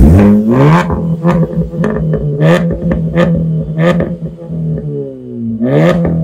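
Hyundai i20's engine revved through a switchable aftermarket dual-tip exhaust. It rises sharply at the start and again near the end and drops back to a steady idle between, with several sharp pops from the exhaust.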